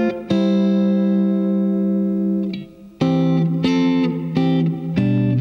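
Clean electric guitar, a Fender Stratocaster with reverb, playing wide-spaced open chord voicings that share a common tone. One chord is struck and rings for about two seconds. About three seconds in, a second chord follows with its notes picked one after another.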